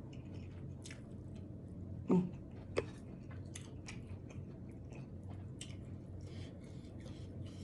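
Close-up mouth sounds of a person chewing sauce-dipped shrimp: soft wet clicks and smacks, with two louder smacks about two and three seconds in.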